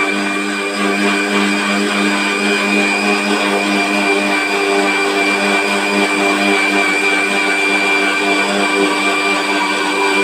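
Kitchen mixer grinder running at steady speed, blending water and protein shake powder in its steel jar: a motor hum with a steady high whine over it.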